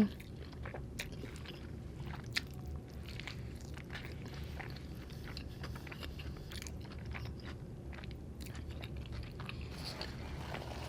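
A person chewing food close to the microphone: soft wet mouth clicks throughout, with one sharper crunch about two and a half seconds in.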